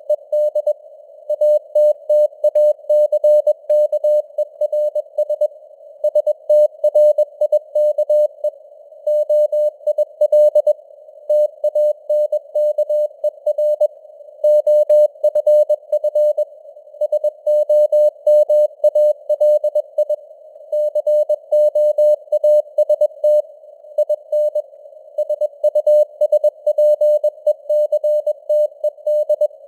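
Morse code (CW) sent at about 21 words per minute: a single mid-pitched tone keyed in dots and dashes, with short pauses between letters and words. It sits over a narrow band of hiss, like a radio receiver's noise.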